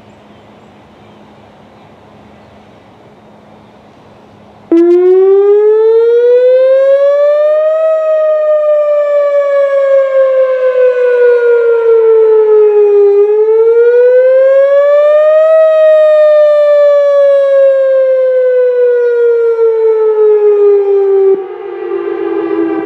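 Whelen WPS 4004 electronic outdoor warning siren sounding its wail tone during a system test. After a few seconds of faint background it comes on abruptly and loud, slowly rising and falling in pitch through two cycles, then cuts off near the end, leaving an echo that dies away.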